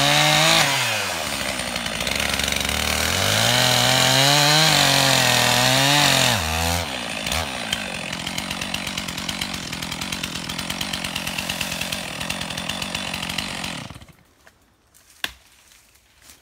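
Two-stroke chainsaw cutting through felled tree trunks, its engine pitch rising and falling under load. About seven seconds in it drops to a lower, steady idle, and about fourteen seconds in it cuts off, leaving a few faint clicks.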